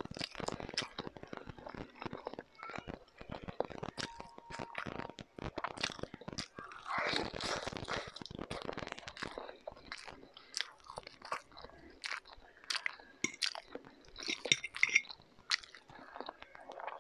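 Chewing and wet mouth clicks of a person eating fried egg white and instant pancit canton noodles, with many short irregular smacks and a longer sound about seven seconds in.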